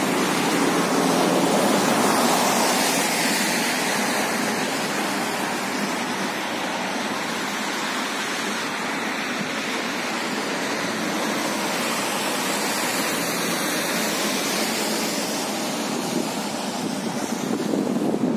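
Steady rushing noise of wind buffeting the microphone, with no engine note or distinct events standing out.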